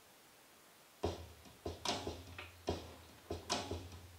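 A hand-played instrument accompanying a song, struck in a repeating rhythm of single and paired beats over a steady low ringing. It starts about a second in, after a faint hush.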